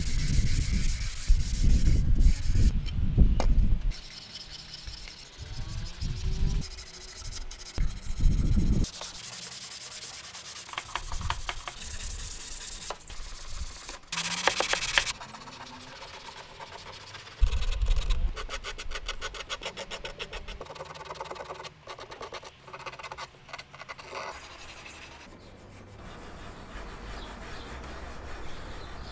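Hand sanding the wooden case of an antique reed organ: abrasive rubbing strokes on wood, in several separate stretches with short pauses, with heavier handling noise in the first few seconds.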